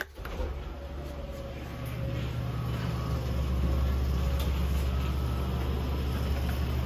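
Electric overhead garage door opener running as the sectional door rises: a click of the wall button at the start, then a steady low motor hum that builds over the first couple of seconds and holds.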